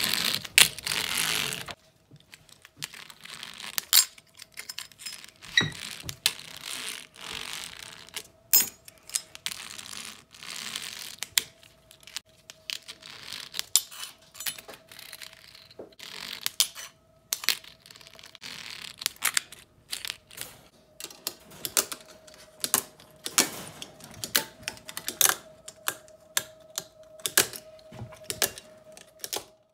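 Fingerboard tricks: the small board's wheels rolling on a hard surface for the first couple of seconds, then many sharp, irregular clacks and snaps as its tail pops and the board lands and grinds on ramps and ledges.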